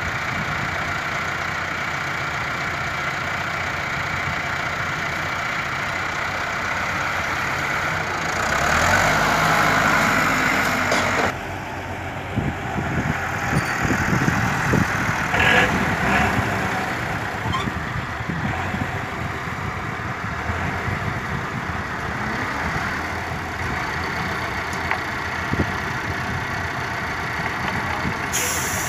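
Diesel engines of a Massey Ferguson 385 tractor and a loaded truck running steadily. They swell louder for a few seconds about eight seconds in, then drop off abruptly soon after.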